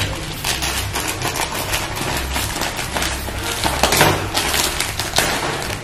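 Plastic snack packets crinkling and rustling as they are torn open and rummaged through, a dense run of quick, irregular crackles.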